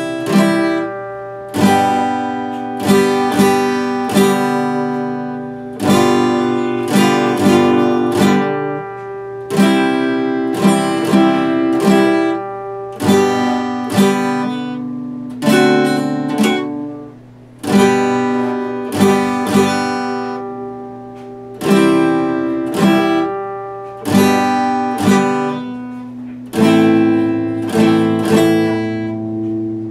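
Epiphone acoustic guitar played solo: chords and picked notes struck every second or two, each left to ring and fade before the next.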